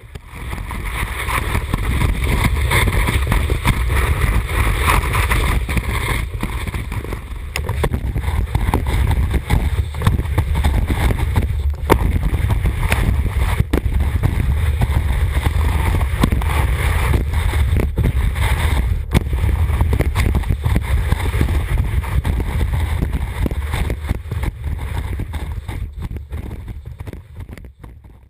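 Wind buffeting a GoPro's microphone on the nose of a 210 cm alpine hardboot snowboard as it carves, with a deep steady rumble and the hiss of the board's edge on snow. It fades down near the end.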